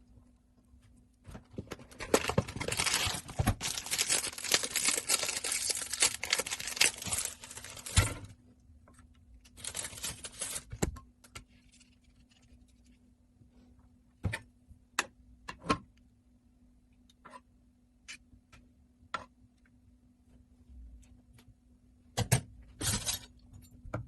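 Kitchen handling noise: a long stretch of rustling and crinkling with many small clicks, two shorter bursts later, and scattered single taps and clicks between them, over a faint steady hum.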